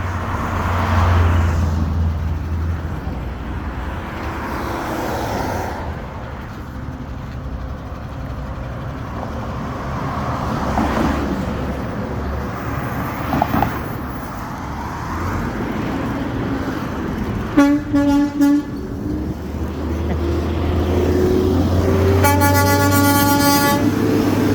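Garbage truck's engine running, then three quick toots of its horn, and a few seconds later one long horn blast near the end as the engine speeds up with the truck pulling away.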